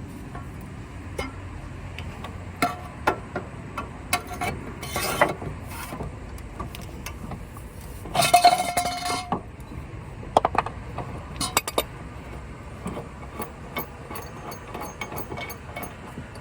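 Metal clinks and knocks of a wrench and leverage bar working on a mower blade bolt. About eight seconds in there is a louder metallic clatter with a short ringing note.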